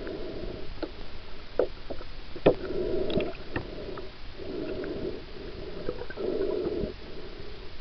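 Muffled underwater sound of a swimmer's strokes: a dull whoosh of moving water about every two seconds, with scattered small clicks and taps.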